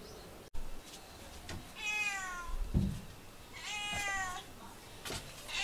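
A domestic cat meowing twice, each call long and falling in pitch, with a third call starting near the end: a cat calling out for its owner's attention. A dull thump comes between the first two calls.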